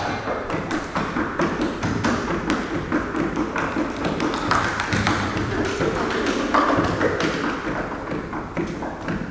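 Quick, irregular taps and knocks on a Di Marco grand piano's case, with the piano struck percussively rather than played as melody.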